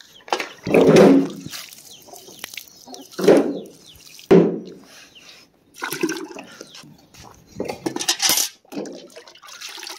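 Water splashing and sloshing as a plastic mug is dipped into a steel bucket of water and lifted out, in several separate splashes.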